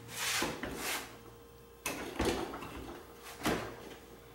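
A new dishwasher being handled: a few scrapes and knocks as it is shifted on the floor, then a sharp clack near the end as its door is pulled open.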